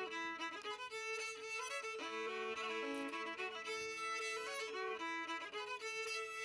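Background fiddle music: a tune of held, bowed notes over a steady lower note.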